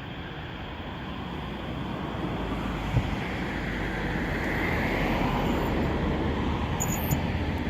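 A car approaching on the road, its engine and tyre noise growing steadily louder. There is one sharp click about three seconds in.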